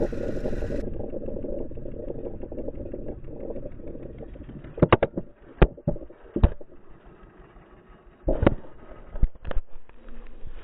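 Engine of a Wheel Horse 657 garden tractor, a Tecumseh cast-iron 6-horsepower engine, running as a dense low rumble that fades over the first few seconds. After that come a series of sharp knocks and thumps.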